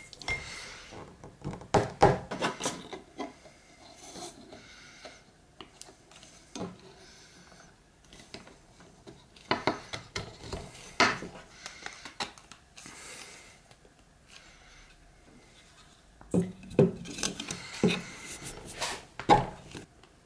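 3D-printed PETG plastic parts being pushed and worked onto aluminium profiles on a wooden bench, a tight fit: knocks, clicks and rubbing scrapes in three bouts, with quieter handling between.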